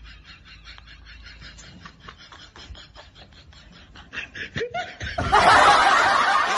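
A person laughing in quick, rapid snickers. About five seconds in comes a much louder, harsh noisy burst that runs to the end.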